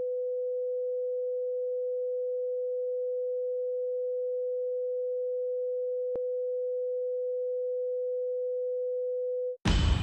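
A continuous pure electronic tone at one steady mid pitch, like a test tone or bleep, with a single faint click about six seconds in. The tone cuts off suddenly near the end and music starts.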